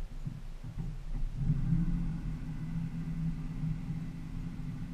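Low, steady motor hum from a small fishing boat's motor, growing a little louder about a second and a half in.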